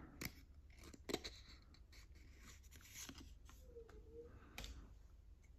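Faint scrapes and a few short clicks of Pokémon trading cards being slid and handled one after another, close to near silence.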